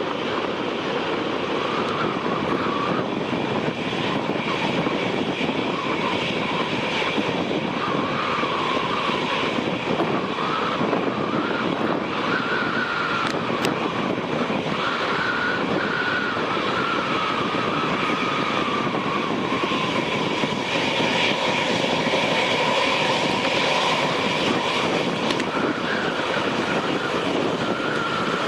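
Airbus A321-211's CFM56 jet engines running at high power for takeoff: a steady loud rumble with a whine that wavers up and down in pitch.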